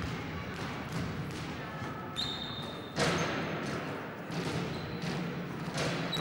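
Basketballs bouncing on a wooden gym floor: a run of thuds echoing in a large hall, with a louder bang about three seconds in. A high squeak sounds for under a second about two seconds in, and briefly again near the end.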